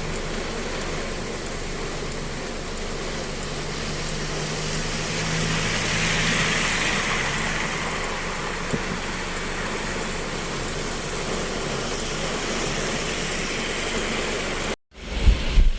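Steady rain falling, an even hiss with a low hum under it, swelling for a few seconds around the middle. Near the end it cuts out abruptly and gives way to low rumbling gusts of wind on the microphone.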